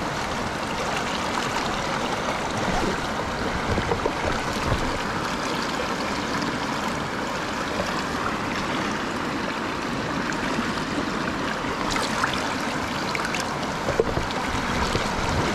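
Shallow rocky stream running over stones: a steady rush of water, with a couple of light knocks near the end.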